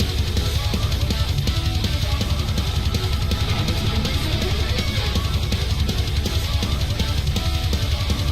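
Heavy metal music: distorted guitars over fast, driving drums and bass.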